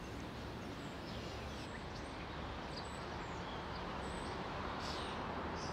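Steady outdoor background noise, growing slightly louder toward the end, with a few faint, short bird chirps.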